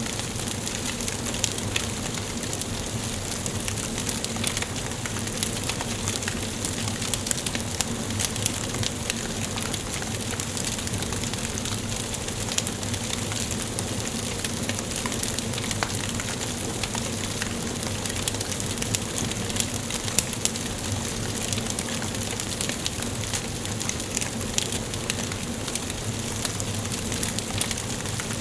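Wood fire burning in a fireplace, crackling steadily with frequent small pops and snaps over a soft hiss.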